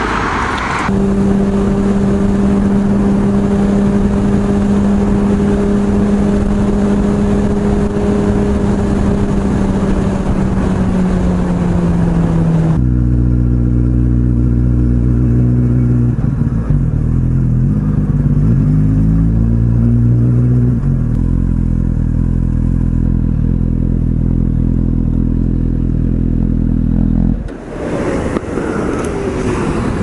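Suzuki GSX-R1000R's inline-four engine running under way at low speed, holding a steady note at first, then dropping in pitch about a dozen seconds in and rising and falling with the throttle. It cuts off abruptly a couple of seconds before the end, leaving fainter noise.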